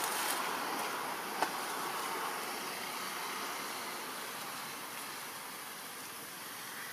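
Steady outdoor background hiss with no animal calls, easing off slightly, and a single sharp click about one and a half seconds in.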